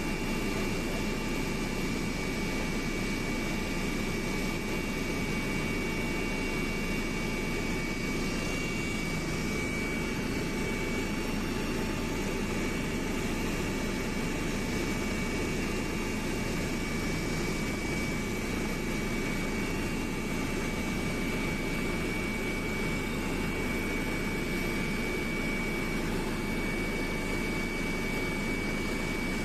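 Aircraft cabin noise in flight: a steady engine drone and rush of air, unchanging throughout, with a few thin steady whines above it.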